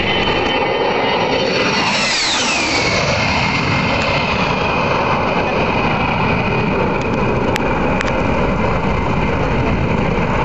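A-10 Warthog's twin turbofans on a low pass: a high whine that drops sharply in pitch about two seconds in as the jet goes by, then a lower, steady whine with rushing jet noise as it flies away.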